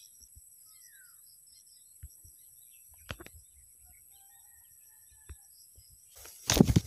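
Faint, steady high-pitched insect drone with a few short bird chirps and scattered light clicks. Near the end, a brief loud rustling knock.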